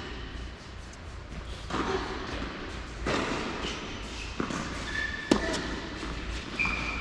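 Tennis ball struck by rackets and bouncing on an indoor hard court during a rally, a few sharp pops with the loudest about five seconds in, echoing in a large hall. Two short high squeaks, of tennis shoes on the court, come near the end.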